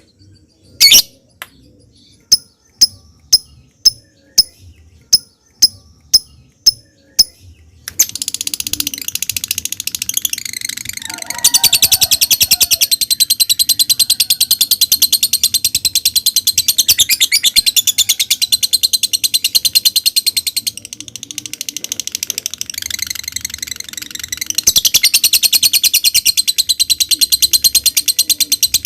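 Lovebird calling: sharp single ticking chirps about two a second for the first seven seconds or so, then breaking into a long, very fast, high-pitched chattering trill (the 'ngekek' song) that runs on, easing briefly about two-thirds of the way through before going full again.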